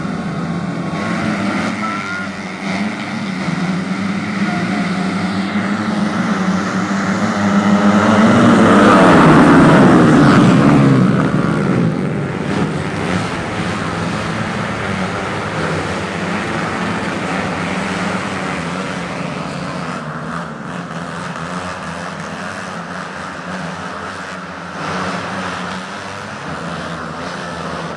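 Several race motorcycles' engines running hard around a dirt track, loudest from about eight to eleven seconds in as bikes pass close, then easing to a steadier drone of engines further off.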